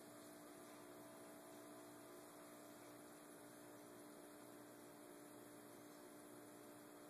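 Near silence: a faint, steady electrical hum.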